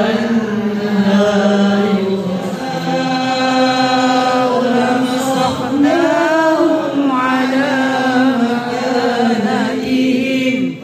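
Quran recitation in Arabic, chanted by male voice in long, held, melodically ornamented phrases.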